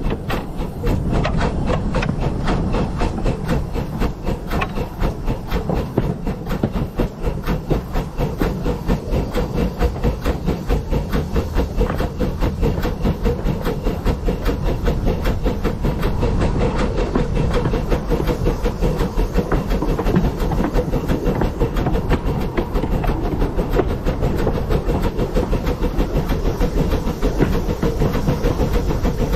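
The 15-inch gauge steam locomotive River Mite running along the line, a rapid, even run of beats over a low steady rumble.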